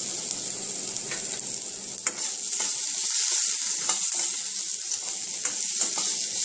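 Chopped onion, green chillies and curry leaves sizzling in a little oil in a black kadai, a steady high hiss. A steel spoon stirring them scrapes and knocks against the pan half a dozen times.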